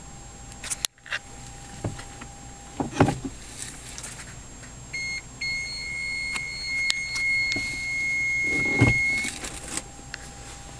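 A steady high electronic beep: a short blip about five seconds in, then one unbroken tone held for about four seconds. Dull handling thumps come about three seconds in and again near the end of the tone.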